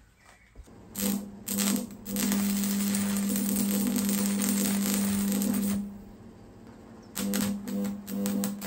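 Stick-welding arc from an old stick welder laying a bead on steel: the electrode is struck twice about a second in, then the arc crackles and sizzles steadily over a steady buzz for a few seconds. The arc drops out about six seconds in and is struck again in short sputtering bursts near the end.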